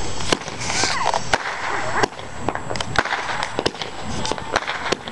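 Consumer fireworks going off: about a dozen sharp bangs and crackles at uneven intervals, the loudest about a third of a second in.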